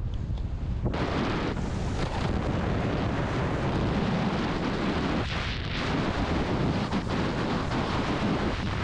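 Wind rumbling on a helmet camera's microphone, with the steady hiss of skis running through heavy, sticky fresh snow, which grows fuller from about a second in.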